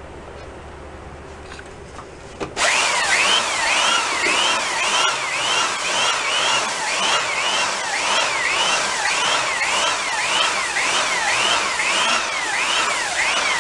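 Handheld belt sander starting abruptly about two and a half seconds in and running against the wooden shell of a 1940s Slingerland Radio King snare drum, sanding the shell flat and smooth. It makes a steady, loud grinding rush with a whine that swoops up and down about twice a second.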